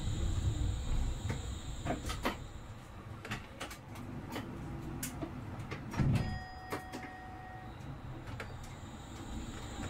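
A rail vehicle at a near standstill: scattered clicks and knocks, then a thud about six seconds in followed by a steady beep lasting about a second and a half. The low running rumble dies down early and returns near the end.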